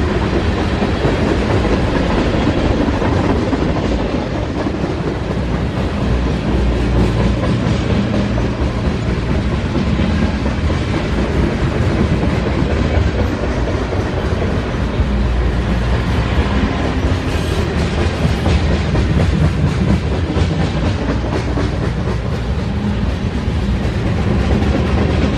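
Freight cars of a mixed manifest train rolling past close by: a steady rumble of steel wheels on rail, with a continuous rapid clatter of wheel clicks.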